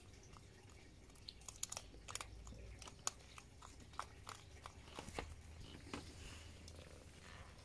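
Hedgehog chewing food from a bowl at close range: a run of faint, irregular sharp clicks and crunches that thins out after about six seconds.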